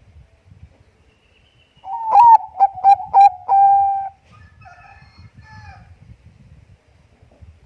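Zebra dove (Bangkok perkutut) cooing: one loud phrase of a few quick, clipped notes ending in a longer held coo, followed by fainter, softer calls.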